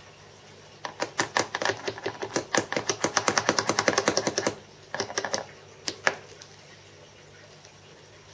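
Rapid tapping on a wooden casting pattern bedded in moulding sand, typical of rapping the pattern loose before it is drawn from the mould: about nine sharp taps a second for three and a half seconds, then two short bursts of taps near the end.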